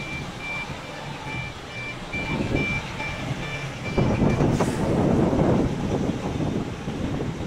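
Heavy diesel tractor unit creeping at low speed with a long flatbed semi-trailer, its engine running steadily under a run of short high beeps. Just over halfway through the beeps stop and the engine and tyre noise grow louder as the cab passes close, with a brief hiss.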